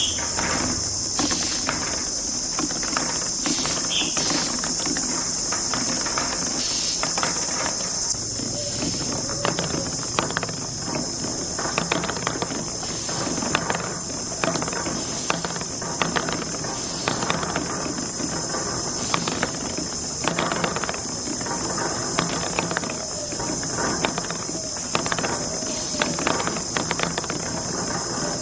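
Marbles rolling and clacking along a plastic marble run track, with many irregular quick clicks, over a steady high hiss.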